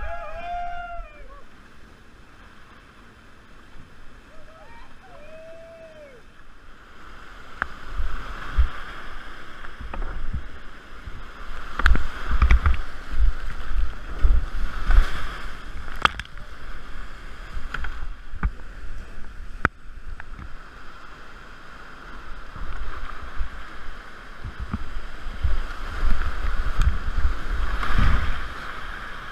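Whitewater of a steep creek rushing and splashing around a kayak as it runs down rapids and a slide, with irregular splashes and low buffeting thumps, heard close up from a camera on the boat. It swells in loud surges around the middle and again near the end.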